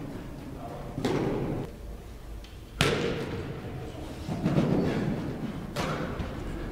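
Several dull thuds echoing in a large indoor hall, with a sharper knock about three seconds in, over faint voices.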